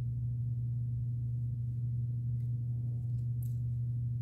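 Steady low-pitched hum, unchanging throughout, with a faint brief rustle about three and a half seconds in.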